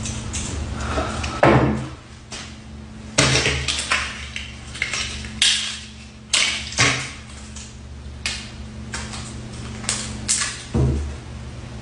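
Short sharp rasps and knocks, about eight in all and irregularly spaced, from gift-wrapping materials and a small box being handled on a tabletop.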